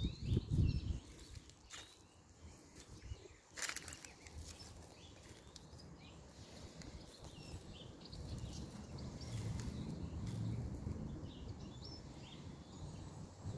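Outdoor ambience: footsteps and a low, uneven rumble of handling on a phone microphone, with faint bird chirps now and then and a single sharp click a few seconds in.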